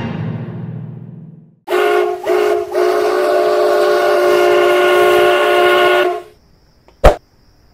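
Spanish train's two-tone horn: two short toots and then a long steady blast of about three and a half seconds, followed by one sharp click. The tail of intro music fades out before the horn.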